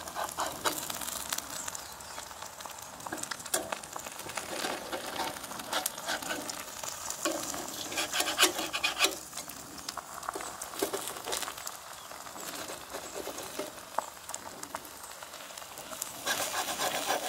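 Eggs frying in a cast-iron griddle pan on a grill: a steady sizzle full of small crackling spatters. A metal spatula scrapes against the pan at times.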